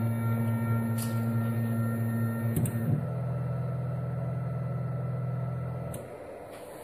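Duplicator i3 3D printer's stepper motors running under a new CloneBoard Mini controller board on its first test, a steady motor hum that shifts to a different pitch with a few clicks about two and a half seconds in. The motors stop about six seconds in, leaving a fainter background hum.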